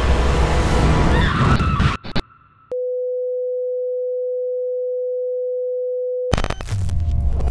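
A single steady electronic tone, one unwavering pitch, held for about three and a half seconds and cut off abruptly. It comes after a short gap that follows about two seconds of loud, dense film-soundtrack rumble, and dense soundtrack sound returns once the tone stops.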